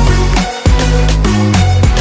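Background pop music, an instrumental stretch between sung lines, with a heavy bass line and a steady beat.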